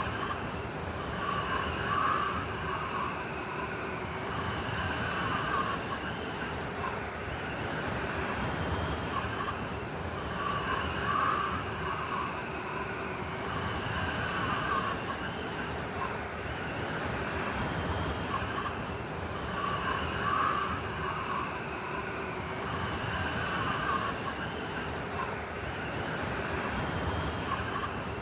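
Blizzard wind blowing steadily, with whistling tones that swell and fade in a pattern repeating every few seconds.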